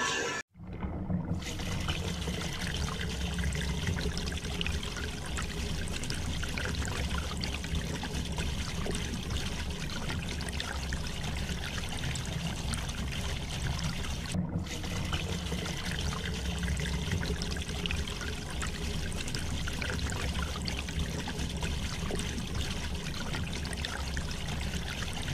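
Water running steadily from a hose pipe and splashing onto a dry dirt road to settle the dust.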